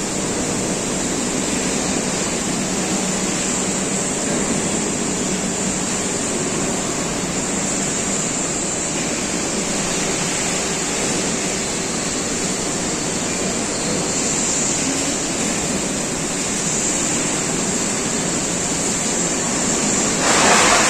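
Steady industrial roar of smelter machinery in a large steel hall. Near the end a louder rush rises as scrap metal pours out of a crane-tipped shipping container onto the scrap pile.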